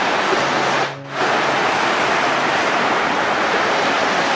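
Ocean surf breaking on the beach, a steady wash of noise that dips briefly about a second in.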